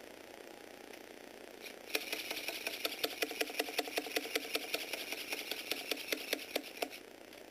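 Motorized Lego Technic mechanism running: a small electric gearbox motor whirring with plastic gears and parts clicking rhythmically, several clicks a second. It starts about two seconds in and stops shortly before the end.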